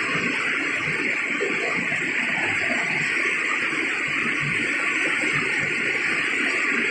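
Heavy downpour: a steady, even hiss of hard-falling rain.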